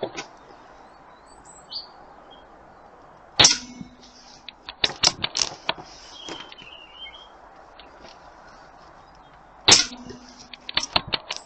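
AP900 air gun fired twice, about six seconds apart: each shot is a sharp crack followed by a brief low ring and a few small clicks. A bird chirps faintly between the shots.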